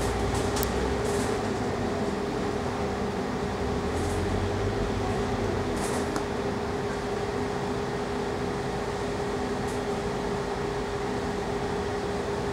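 Interior noise of a Scania K310UD double-decker bus: its five-cylinder diesel engine and drivetrain running with a steady drone and a constant whine, and the low rumble swelling near the start and again about four seconds in. Occasional light clicks from the cabin fittings.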